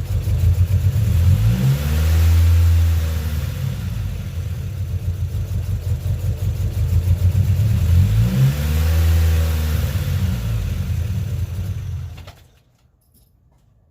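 Turbocharged Honda Civic four-cylinder engine with its idle surging: the revs rise and fall twice on their own. This hunting idle is the sign of a failing idle air control valve. The engine sound cuts off about twelve seconds in.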